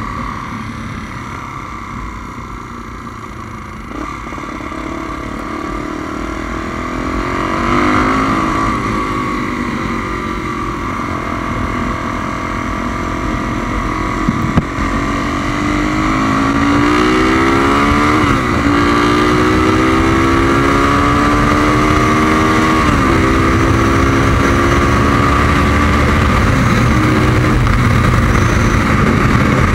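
Tuned 350cc single-cylinder Honda Tornado motorcycle engine under way, accelerating with the revs climbing and dropping back at gear changes a few times, then holding steady near the end. Low wind rumble on the microphone runs under it.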